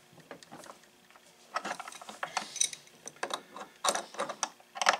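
Steel wrenches clicking and scraping on a brass gas fitting as it is tightened against a backing wrench to make a gas seal. A run of irregular sharp clicks begins about a second and a half in.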